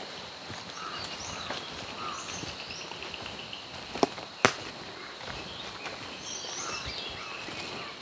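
Forest ambience with small birds chirping and calling on and off, and a short rapid trill about two seconds in. About four seconds in come two sharp clicks half a second apart, the loudest sounds.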